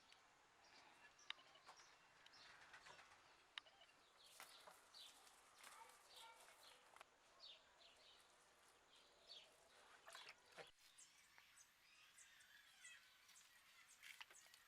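Faint birdsong: many short chirps and twitters from several birds, over a soft background hiss with a few sharp clicks.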